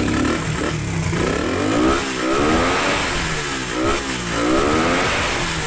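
Suzuki Raider 150's single-cylinder four-stroke engine revved twice, its pitch climbing and falling back each time. It now revs freely and high, a sign that the newly fitted SGP carburettor diaphragm has cured its lack of RPM.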